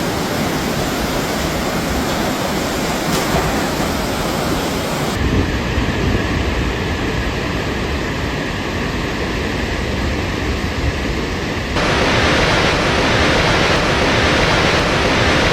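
Loud, steady rushing of a torrent of water, changing abruptly twice as the shots cut.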